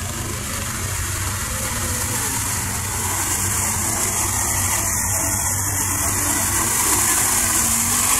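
ATV engine running steadily with a constant hiss over it, growing slowly louder.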